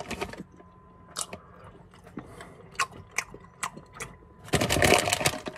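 Someone chewing candy corn close to the microphone: scattered small clicks of the mouth working, then a louder, noisier stretch lasting about a second near the end.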